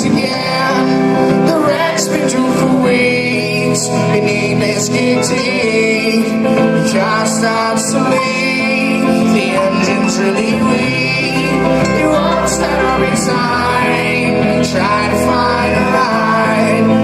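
Live band playing an instrumental jam: guitar lines over a steady bass and drum beat.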